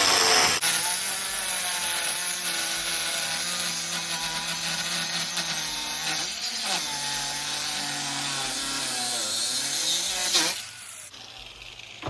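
Angle grinder with a 4-inch diamond tile blade cutting fiber-cement backer board: a loud, steady whine with cutting hiss. Its pitch sags twice as the blade bites under load, and it cuts off sharply near the end.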